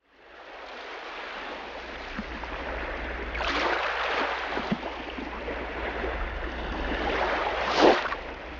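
Rushing water that fades in at the start and swells twice, about three and a half seconds in and more strongly near the end, over a steady low hum.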